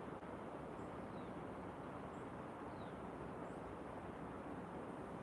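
Outdoor storm ambience: a steady rushing noise, with a few faint, short, falling bird chirps high above it.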